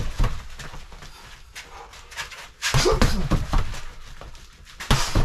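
A boxer's heavy breathing and grunted exhalations as he punches a Century BOB free-standing punching dummy, with dull thuds of the gloves. There are loud bursts about three seconds in and again right at the end, with quieter panting between.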